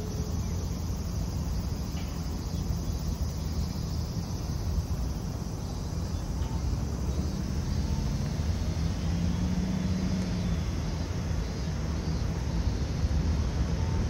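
Outdoor ambience: a steady low rumble with a faint, steady high insect drone above it.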